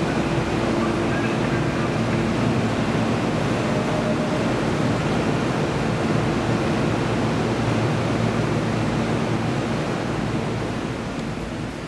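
A steady, loud rushing noise with a low hum under it, easing off near the end.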